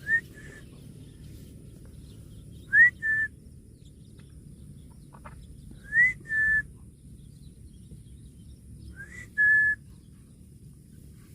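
A two-note whistle repeated four times, about three seconds apart: a quick rising note, then a short steady note at about the same pitch.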